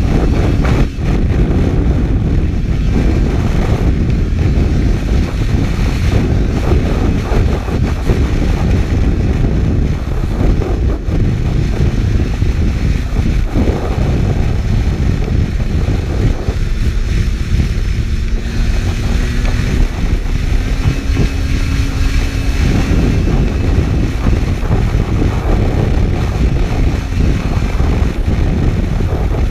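Heavy wind buffeting a GoPro microphone on a snowmobile running over lake ice, with the engine a faint tone under the wind noise. The engine rises slowly in pitch about two-thirds of the way through.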